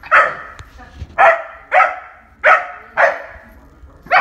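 A Doberman barking five times in quick succession, each bark sharp and short.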